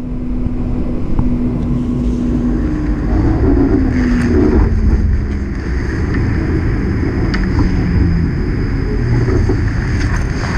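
Electric streetcar running along its rails: a steady low rumble with a low whine that rises slightly and then falls in pitch as the car's speed changes.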